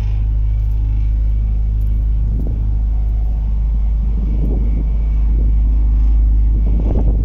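Steady low rumble of an idling diesel engine. From about two seconds in, scratchy rustling and wind noise on the microphone come and go over it.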